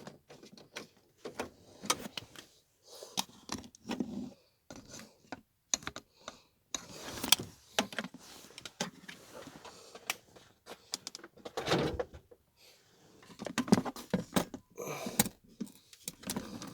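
Irregular clicks, rattles and knocks of small hard objects being handled, with a few louder thuds.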